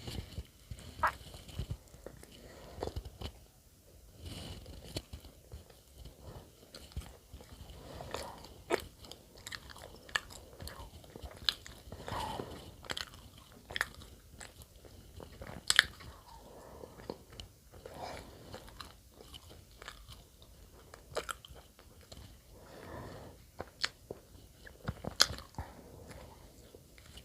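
A person chewing and biting bread close to the microphone, with irregular sharp clicks and smacks of the mouth throughout.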